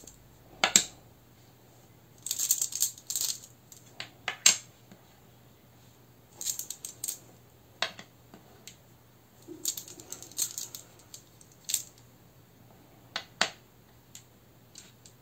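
Rune pieces clattering in a cloth pouch as they are shuffled and drawn, in short bursts, with sharp single clicks as each rune is set down on a wooden table.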